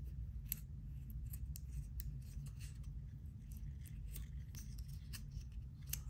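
Light, irregular metallic clicks from the steel buckle and keeper of a resin G-Shock watch strap being handled by fingers, over a steady low hum.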